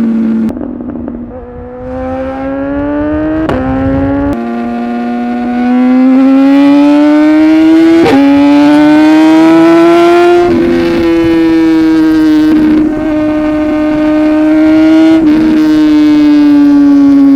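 Superbike engine accelerating hard. The pitch climbs, drops sharply at quick upshifts about three and a half, four and eight seconds in, then holds at high revs.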